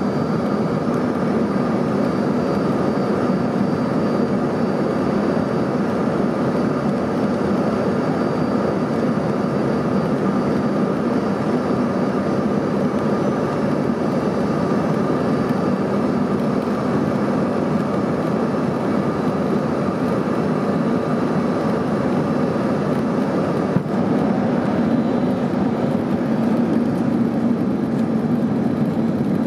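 Steady cabin noise inside an Embraer ERJ-135 regional jet on approach, from its rear-mounted Rolls-Royce AE 3007 turbofans and the rush of air past the airframe. A faint high whine fades out about halfway through, and there is a single click late on.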